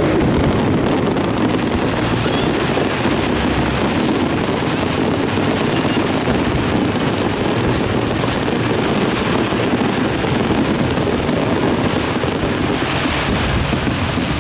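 A dense fireworks barrage: many shells bursting at once, their booms and crackling overlapping into one continuous rumble.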